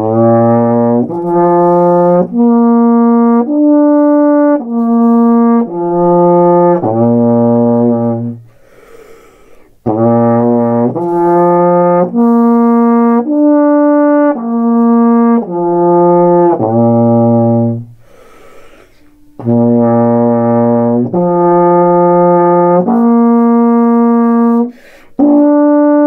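Euphonium played with no valves pressed, slurring up and down through its open partials one held note at a time, from the low B-flat to the higher open notes and back. The exercise is played three times over, with a short pause between runs and another run starting near the end.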